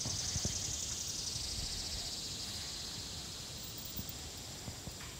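Steady high-pitched insect chorus buzzing, fading slightly toward the end, over a low rumble, with a few faint knocks near the start.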